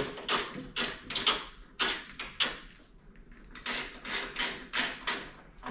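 Short mechanical clicks and scrapes, roughly two a second and a little irregular, as a bolt is worked in to hold a new car headlight assembly loosely in place.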